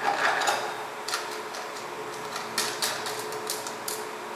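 Handling noise from a digital readout display being positioned on its metal swing-arm mounting bracket: a brief scrape at the start, then scattered light clicks and taps, bunched together near the end.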